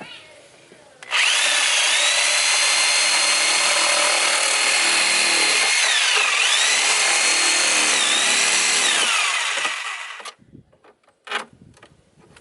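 Power tool cutting through a chicken coop basket, its motor whining steadily. The pitch dips twice as the blade bogs down in the cut. It starts about a second in and winds down and stops near the end.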